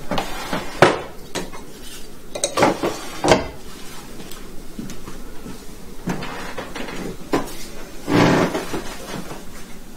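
Hard household objects knocking and clinking as they are handled: about five sharp knocks spread over the stretch, and a longer clattering noise about eight seconds in.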